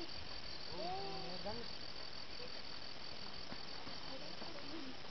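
An insect chirping steadily in a high, even pulse of about five chirps a second, which stops near the end. Faint distant voices are heard about a second in.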